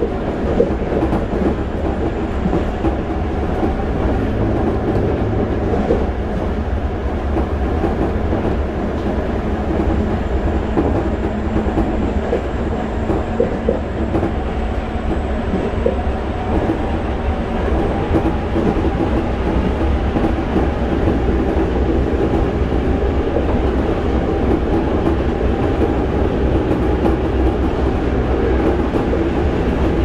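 Toei 5300-series commuter train running at speed, heard inside the passenger car: a steady rumble of wheels on rail with irregular light knocks, and a faint high whistle in the first half.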